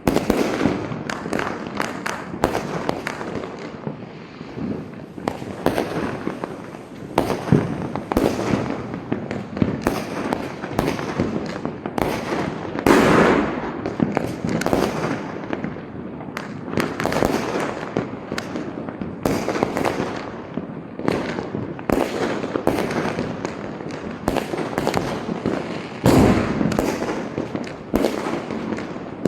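Diwali firecrackers and fireworks going off in quick, irregular succession: dozens of sharp bangs and pops, with heavier bursts about halfway through and again near the end.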